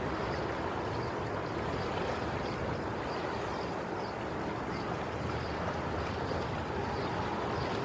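Steady wash of sea waves, a continuous rushing with a low rumble beneath it.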